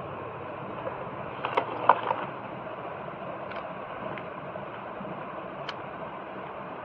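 Small metallic clicks and clinks of a tool working on the wall fan's nuts and casing as it is taken apart. There is a brief cluster about two seconds in and a few single ticks later, over a steady background noise.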